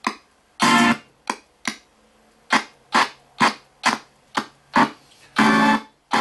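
RTC ghost box (spirit box) sweeping through radio stations, throwing out chopped fragments of broadcast music about twice a second with brief quiet gaps between them. Most fragments are very short; two last about half a second, one about a second in and one near the end.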